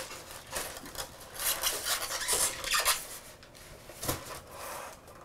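Packing material rustling and rubbing: a thin foam wrap sheet pulled off an electric scooter's handlebar, and the handlebar scraping out of polystyrene packing foam. A sharper knock comes about four seconds in.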